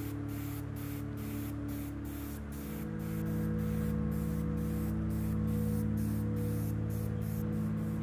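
Background music of sustained low chords, changing about two and a half seconds in, with a steady hiss on top that pulses about three times a second.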